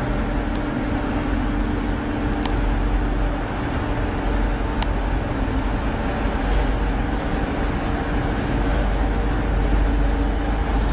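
Steady drone of a ship's engines with a low rumble and a constant hum.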